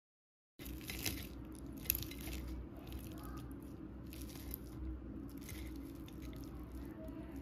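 A fork breaking into a crisp masala-crusted fried fish: several short crunchy crackles of the crust and one sharp click about two seconds in, over a steady low hum. The sound begins about half a second in.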